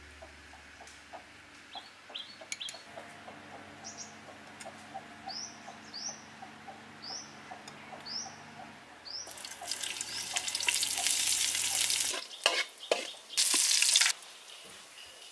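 Sliced red chillies and aromatics hitting hot oil in a wok and sizzling loudly from about nine seconds in, with louder bursts of sizzle as they are stirred near the end. Before that, a small bird chirps repeatedly, short rising chirps several times in a row.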